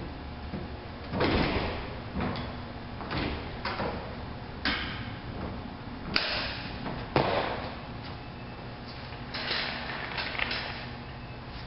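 A string of irregular metal scrapes and clunks as an outboard motor is shifted into a pickup bed and a person moves about on a metal tailgate lift platform, with the sharpest knocks about six and seven seconds in. Near the end, a wheeled shop cart rattles across a concrete floor.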